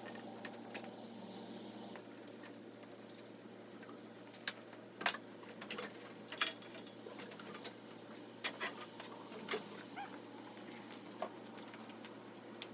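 Sporadic sharp metallic clicks and clinks of work on an engine install, the loudest ones between about four and ten seconds in, over a low steady hum.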